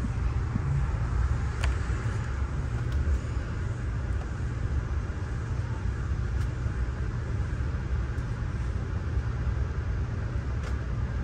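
Steady low rumble and running noise of an Amtrak Budd Amfleet passenger coach rolling along the track, heard from inside the coach, with a few faint clicks.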